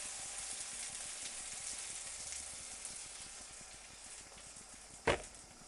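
Beaten eggs sizzling as they are poured over hot vegetables and olive oil in a non-stick frying pan; the sizzle slowly fades. A single sharp knock comes about five seconds in.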